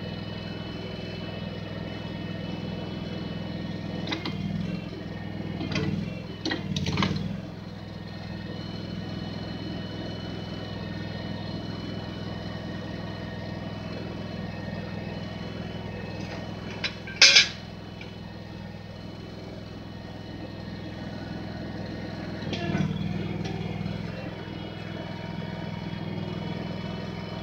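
Backhoe engine running steadily. It swells louder a few times as the machine works, and there is a single sharp knock about two-thirds of the way through.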